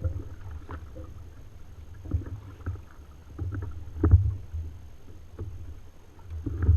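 Kayak paddling: paddle strokes dipping and splashing in the water, with low rumbling thuds that recur every one to two seconds, the strongest about four seconds in.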